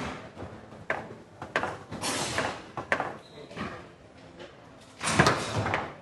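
Foosball table in play: sharp clacks of the ball striking the player figures and the table, and the rods sliding and rattling through their bearings, loudest in a rattle of about a second near the end.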